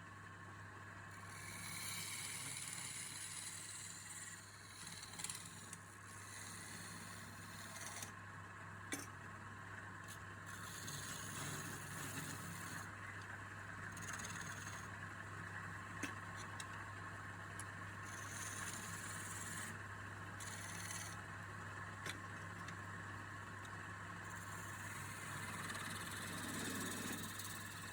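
Wood lathe running with a steady motor hum while a turning tool scrapes against the spinning wood, with a few sharp clicks.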